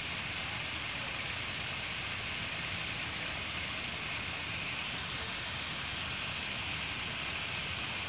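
Small waterfall splashing down layered rock ledges: a steady rushing hiss of falling water.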